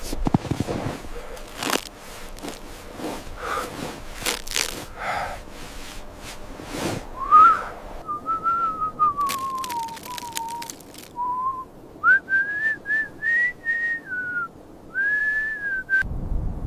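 A person whistling in a few drawn-out phrases: the pitch first slides down, then steps up higher and wavers, with short breaks between phrases. Before that come irregular crunches and knocks.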